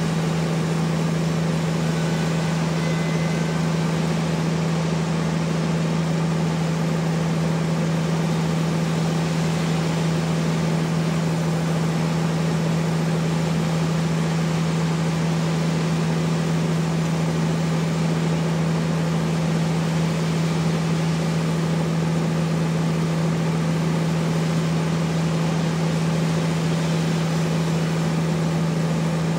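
Sawmill machinery running steadily, a constant hum with no change in pitch or level.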